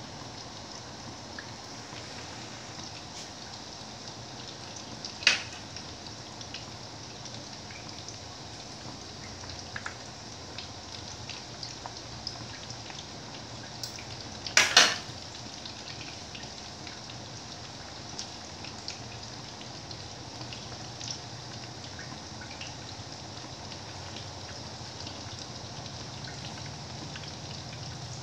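Pork meat patties frying in oil in a pan: a steady sizzle with scattered crackles and pops. Two louder sharp clacks, about five seconds in and near the middle.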